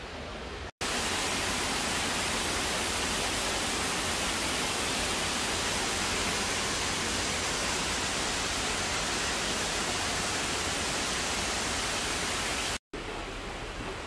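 A steady, even rushing hiss with no rhythm or pitch. It cuts in abruptly about a second in and cuts out near the end, where a quieter hiss of the same kind takes over.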